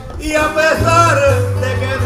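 Puerto Rican jíbaro music: a man singing a décima-style verse, holding and bending long notes, over acoustic guitar accompaniment with a steady bass line under it.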